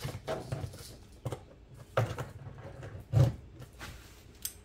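Handling noise of a small 12-volt air-mattress pump: crinkling plastic wrapping and scattered knocks, the loudest about three seconds in. The pump itself is not running, because the car is not yet powered on to feed the 12-volt outlet.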